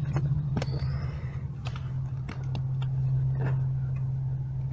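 Scattered light clicks and taps of hands working the plastic kick panel and its retaining tabs under a car's dashboard, over a steady low hum.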